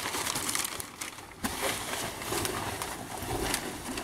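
Packing material rustling and crinkling in irregular bursts as hands dig through a shipping box.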